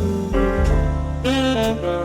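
Background jazz music with a saxophone playing a melody over bass and piano.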